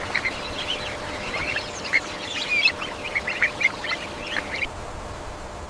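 Many short bird calls overlapping in quick succession. They stop abruptly near the end, leaving a faint steady hiss.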